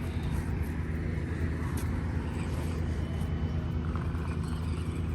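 A steady low engine drone, even in level throughout, with faint scattered ticks above it.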